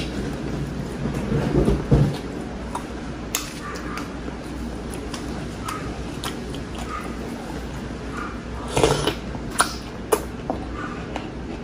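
Close-miked eating sounds: chewing a mouthful of rice and beef with wet mouth noises and small lip smacks. About nine seconds in comes a short burst of loud slurping and sucking as broth and a leafy vegetable stem are drawn in from a wooden spoon.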